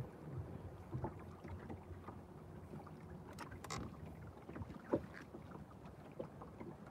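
Faint steady low hum of a bass boat on the water, with scattered light clicks and knocks as a spinning reel is cranked in. The sharpest knock comes about five seconds in.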